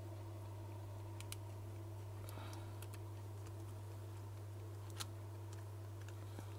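Steady low electrical hum with a few light clicks of small parts being handled, about a second in, around two and a half seconds in, and once more near five seconds.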